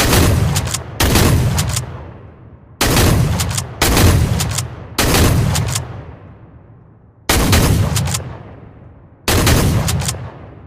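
HZ12 multi-action shotgun firing seven shots at uneven intervals, some a second apart and some two seconds apart. Each shot has a long, echoing tail that fades away.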